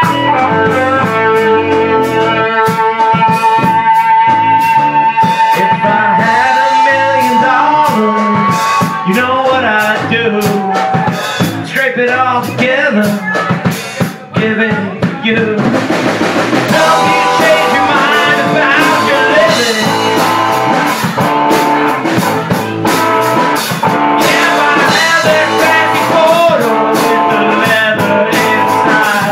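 A live rock band plays: electric guitar, bass guitar and drum kit. A long held electric guitar note bends in pitch over the first several seconds. The band thins out and briefly drops away about halfway through, then comes back in at full volume.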